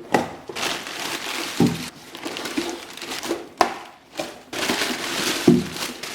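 Cardboard carton being pulled open by hand, its flaps and packing rustling and crinkling in several stretches, with a sharp snap about three and a half seconds in.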